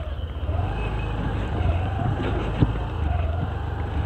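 Honda Dio scooter's single-cylinder engine running at low speed over a rough dirt track, with a heavy low rumble on the microphone. A faint tone rises and falls about once a second, and there is a single knock about two and a half seconds in.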